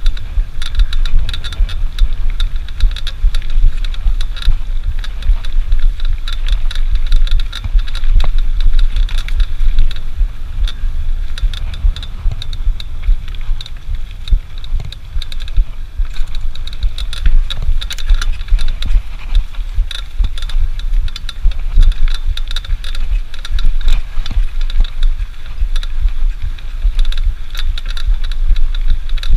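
Loud steady low rumble with a constant patter of small clicks and rattles: the wind and mount noise of a GoPro camera carried along while moving.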